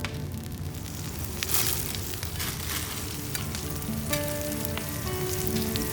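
Hamburg steak patties sizzling in a pan over a wood fire: a steady crackling fry, with a louder surge of sizzle about a second and a half in.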